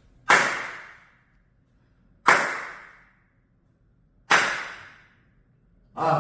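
Three sharp hand claps about two seconds apart, each trailed by a reverberant ring that dies away over most of a second: the strong echo of a hard-surfaced conference room. A man's voice starts right at the end.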